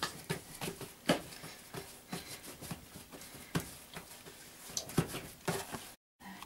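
Hands pressing and patting yeast dough flat on a floured wooden table: a string of soft, irregular pats and thumps, about two or three a second, a few of them louder.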